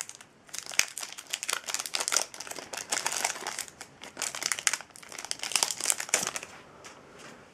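Foil wrapper of a Yu-Gi-Oh booster pack crinkling as hands work it open; the crackling dies down about six seconds in.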